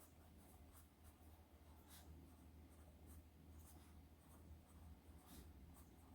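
Faint scratching of a 0.9 mm HB pencil lead on paper, in short irregular writing strokes, over a low steady hum.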